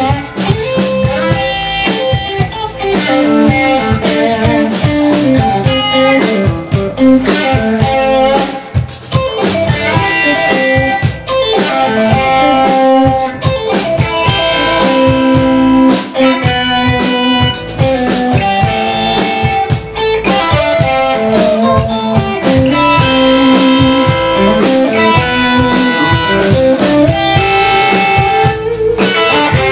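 Live blues band playing an instrumental stretch: electric guitar lead lines over electric bass and a drum kit.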